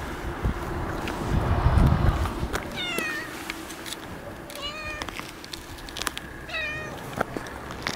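Orange tabby stray cat meowing three short times close to the microphone. A low rumble about a second and a half in is the loudest sound.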